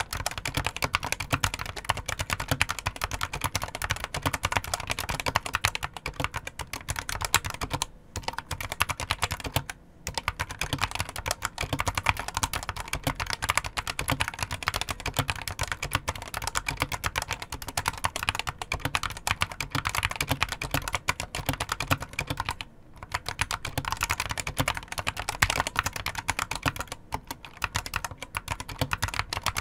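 Steady, fast typing on a Geek GK61 61-key mini mechanical keyboard with Gateron optical yellow linear switches and ABS double-shot keycaps: a dense stream of key clacks broken by a few brief pauses. There is some hollow case ring, which the reviewer finds not bothersome.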